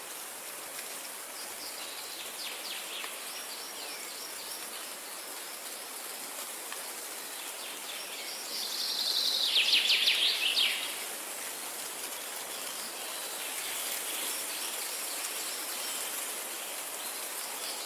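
Birds singing in rapid trills of quickly repeated notes, one loud burst lasting about two seconds near the middle and fainter ones before and at the end, over a steady high insect hum.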